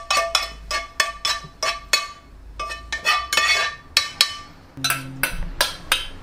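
Stainless-steel saucepan knocked again and again against the colander and sink rim to shake out the drained macaroni: quick metallic clinks, about three a second, each ringing briefly. A few heavier, duller knocks come near the end.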